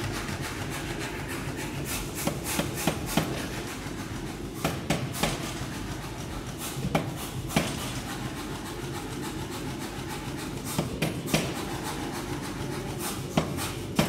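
Forging shop noise: a steady rushing sound with irregular sharp metallic knocks and taps, in small clusters of two or three, as red-hot steel is worked with tongs on a steel block.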